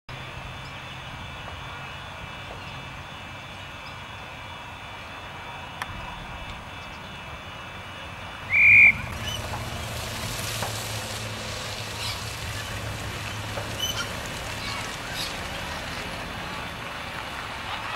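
Steady outdoor background noise, broken a little past halfway by one short, loud, high blast of an umpire's whistle.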